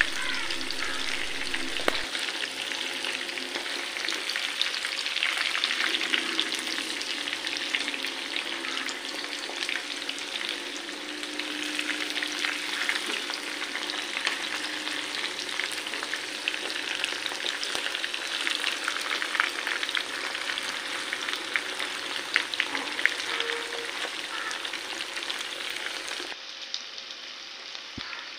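Marinated chicken pieces shallow-frying in hot coconut oil with green chillies and curry leaves: a steady sizzle full of small crackles and spits, while a slotted spatula turns the pieces in the pan. Near the end the sizzle drops a little quieter and duller.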